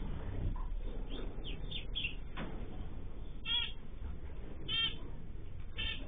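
Mixed cage birds (cockatiels and small finches) calling in an aviary: a few faint chirps in the first couple of seconds, then three short, louder calls about a second apart in the second half.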